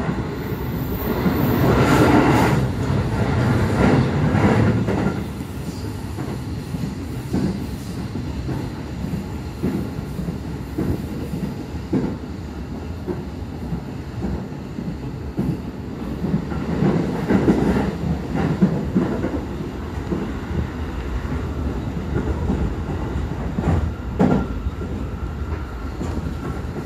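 Commuter electric train running at speed, heard from inside the passenger car: a steady rumble of wheels on rail with scattered rail-joint clicks. It swells louder for a few seconds near the start and again about two-thirds of the way through.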